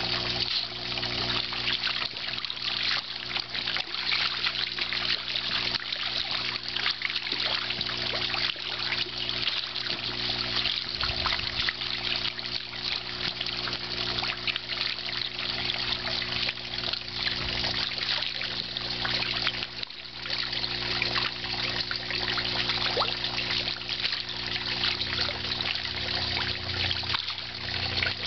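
Water trickling and splashing steadily into a small backyard trout pond, with a constant low hum underneath.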